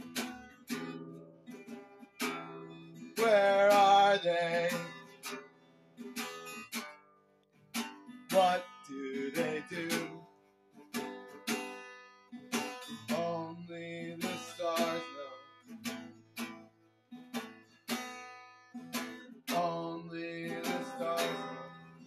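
Acoustic guitar strummed and picked in an instrumental passage of a folk punk song, chord after chord with short gaps, the loudest chord ringing out about three seconds in.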